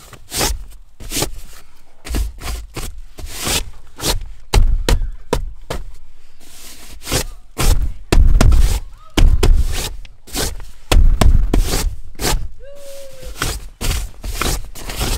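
A hand brushing and swiping across a 4Knines quilted bench seat cover to knock loose dirt out, in many quick irregular strokes with dull thumps mixed in.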